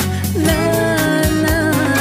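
Background music: a pop song with a steady beat and a held melody line coming in about half a second in.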